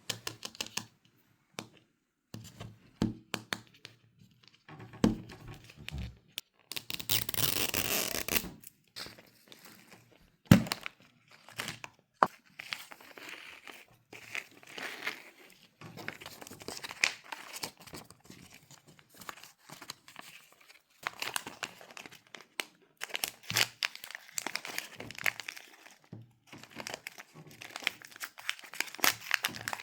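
Plastic wrappers of a Mini Brands toy capsule being handled, crinkled and torn open, with scattered clicks and knocks of hard plastic. The loudest is a long tear about seven seconds in, then a sharp knock a few seconds later.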